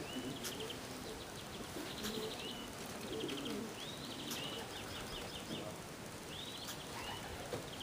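Racing pigeons cooing softly at the loft, with a small bird's high, rapid trilling calls repeating every second or so.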